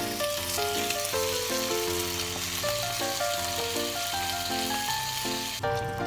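Raw oysters sizzling in hot oil in a frying pan, a dense hiss that cuts off abruptly just before the end, with background music playing throughout.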